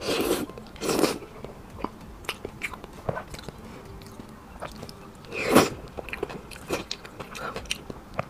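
Close-up mouth sounds of eating soft pig brain and noodles in chili oil: wet chewing with many small clicks, and three louder bursts as food goes into the mouth, at the start, about a second in and about five and a half seconds in.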